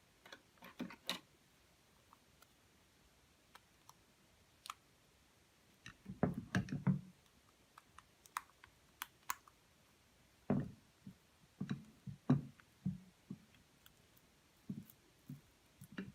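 Slime being kneaded and pressed by hand as makeup is mixed in, giving scattered sharp sticky clicks and small pops, with denser bursts of squelching about six seconds in and again around the eleven- to thirteen-second mark.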